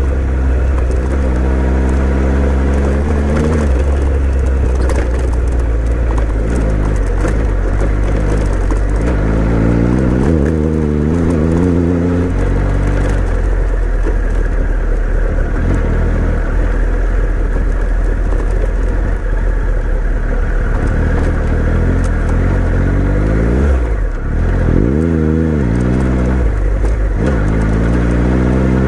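Adventure motorcycle engine running under load on a dirt trail, the revs rising and falling several times with the throttle and gear changes.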